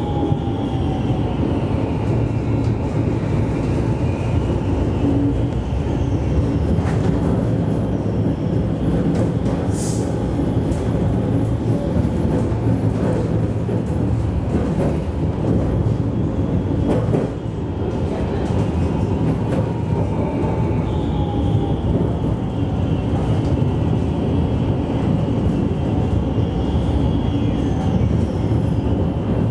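Alstom Citadis low-floor tram running along street track, heard from the driver's cab: a steady rumble of wheels on rail, with faint whines that rise and fall in pitch. A brief high squeak comes about ten seconds in.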